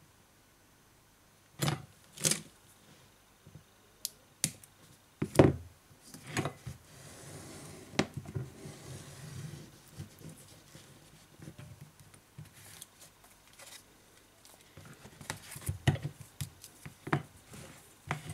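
Hands laying double-sided adhesive tape along a tablet display's frame and handling small tools: scattered sharp clicks and taps, the loudest about five seconds in, with a soft rustling stretch around the middle.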